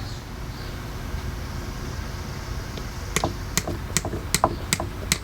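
Hammer blows driving a spike-type reset pin into the top of a wooden 4x4 fence post stub, starting about three seconds in at a steady two to three strikes a second.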